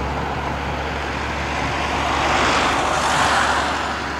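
A vehicle passing by: a rushing noise that swells to a peak about three seconds in and then fades, over a steady low rumble.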